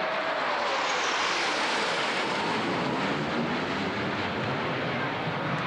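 Jet engine roar of a four-ship formation of F-16 fighters flying over, steady and loud, with a high whine sliding down in pitch about a second in.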